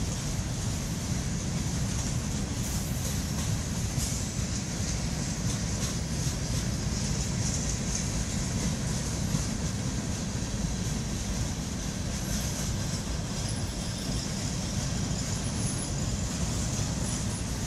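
Freight train of covered hopper cars rolling past close by: a steady rumble of steel wheels on rail with a high hiss over it and a few faint clicks.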